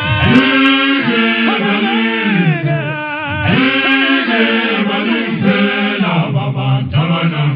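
All-male a cappella choir singing isicathamiya in close harmony, voices held together in long chords, phrase by phrase.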